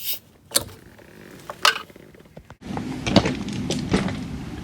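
Scattered sharp clicks and knocks of metal tools being handled. About halfway through, the background abruptly gets louder and the knocks come more often.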